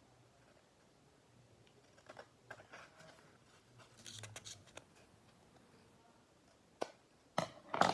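Paper and sticky tape being handled and pressed down by hand, with soft crinkling, then a few sharp snaps near the end.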